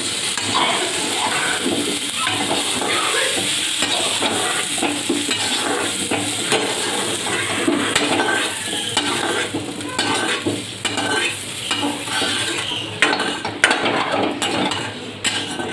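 Fried potato cubes sizzling in a metal kadai while a flat metal spatula scrapes and scoops them out into a steel bowl. A steady sizzle runs under repeated scraping strokes and clinks of metal on metal, which get sharper near the end.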